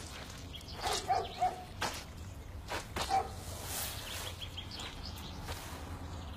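An animal's short yelping calls, a pair about a second in and another near three seconds, among a few sharp knocks. Faint chirps follow over a steady low hum.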